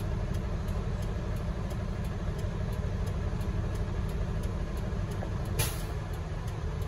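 Heavy diesel machinery running steadily: the diesel-hydraulic drive of a Komptech Nemus 2700 trommel screen and a Doosan excavator working alongside, a deep even rumble. A brief burst of hiss comes near the end.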